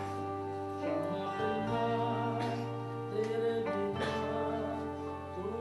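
Music with slow, held chords over a steady low bass note, the chords moving to new notes every second or two.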